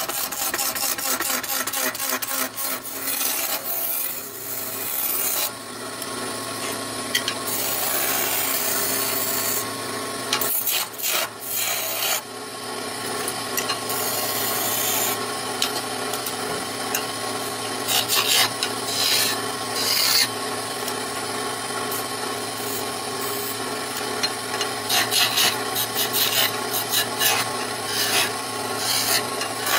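Wood lathe running with a steady motor hum while a hand-held chisel cuts the spinning wooden spindle blank, a scraping, rasping cut that grows and fades as the tool is pressed in and eased off.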